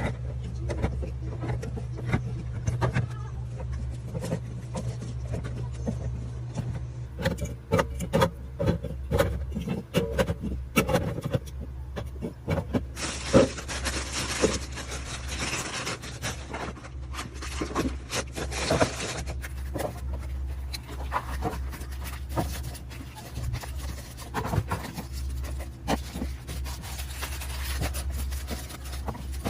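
Containers and food packages being handled and set down, giving many small clicks and knocks over a steady low hum. About halfway through comes a hissing stretch of several seconds.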